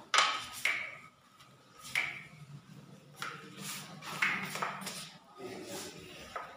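Several sharp metallic clinks and taps, each with a short ring, from metal skim-coat plastering tools being knocked and handled.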